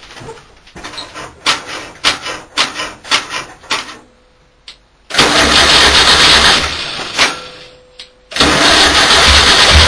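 A 1600cc air-cooled flat-four VW Type 2 bus engine being started, after a run of irregular clicks and knocks. About five seconds in it fires and runs briefly, then dies away. Near the end it starts again and keeps running.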